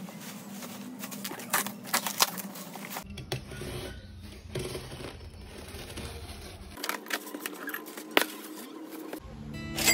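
A large cardboard shipping box being opened by hand: packing tape cut and torn, and cardboard flaps scraped and pulled back, with several sharp crackles.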